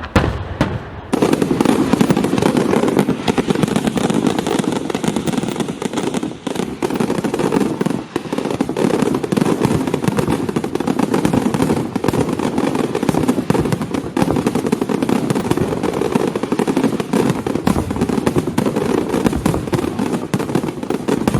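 Fireworks going off: a few separate bangs, then from about a second in a dense, continuous crackling barrage of many rapid small reports.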